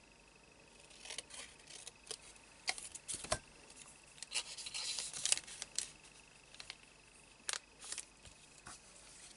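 Small scissors snipping a few times, then a thin plastic pocket sleeve rustling as it is handled, with scattered light clicks and taps.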